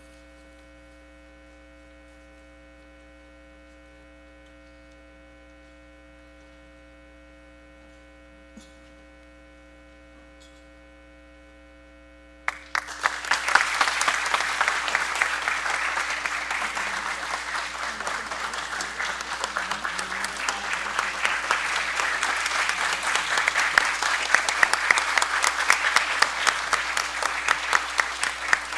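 A faint steady electrical hum for about twelve seconds, then a crowd suddenly breaks into applause and keeps clapping steadily through the rest.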